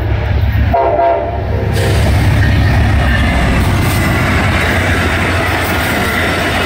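Amtrak GE P42DC diesel locomotive no. 100 gives a short horn toot about a second in. It then passes close by: a loud, steady diesel rumble and a rush of wheels on the rails as the coaches follow.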